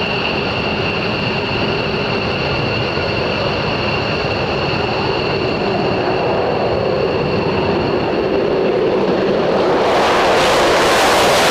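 F-22 Raptor's twin Pratt & Whitney F119 turbofan engines at takeoff power during the takeoff roll: a steady, loud jet noise with a high whine. About ten seconds in, as the jet lifts off, it grows louder and hissier.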